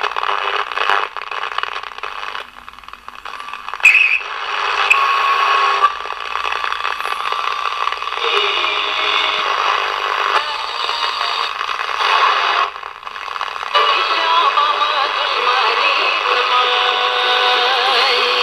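Captain YT-161 six-transistor pocket radio being tuned down the medium-wave dial, its small speaker giving a thin sound with nothing low: snatches of stations that change abruptly every few seconds, with a brief whistle about four seconds in. From about fourteen seconds in it settles on a station playing music with singing.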